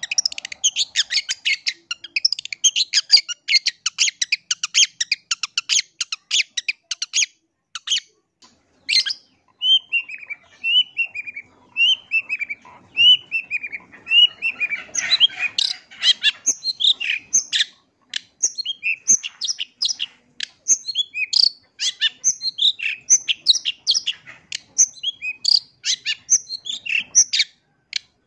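Long-tailed shrike (pentet) in full song: a fast stream of harsh chattering notes, a short pause, then a run of slurred falling whistles and more varied chattering phrases.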